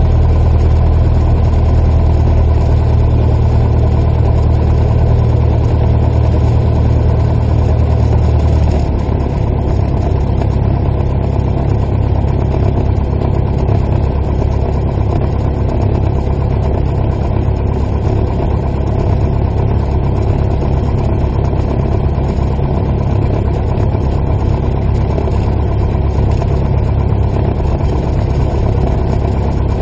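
The piston engine and propeller of a single-engine light airplane run at low taxi power with a steady drone. About nine seconds in, the engine note shifts and gets slightly quieter.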